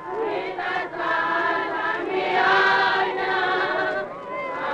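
A choir of many voices singing together in long held notes, swelling loudest about halfway through.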